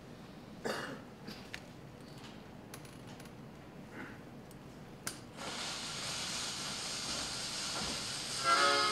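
Clicks and knocks of a portable suitcase record player being handled and set up. About five and a half seconds in, the steady hiss of the needle on the record begins, and the record's music starts just before the end.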